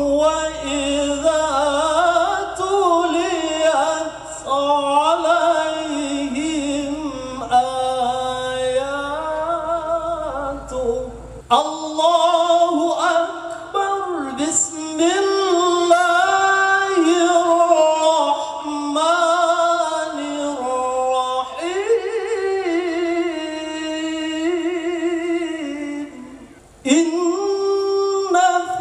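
Male qari reciting Qur'an verses in the melodic tilawah style through a microphone, in long ornamented phrases with short pauses for breath about eleven seconds in and near the end.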